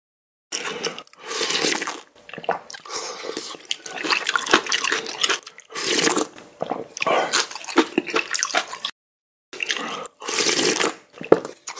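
Close-miked wet slurping and chewing of spicy ramen noodles in broth, in a run of separate slurps. It cuts to dead silence twice, briefly.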